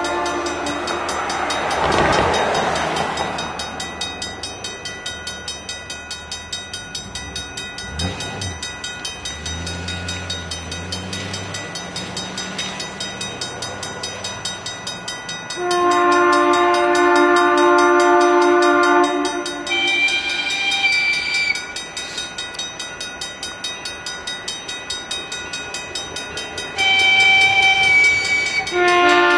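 Level-crossing warning bell ringing steadily throughout, while an approaching train sounds two long horn blasts, one about halfway through and one near the end. A rushing swell of noise rises and fades about two seconds in.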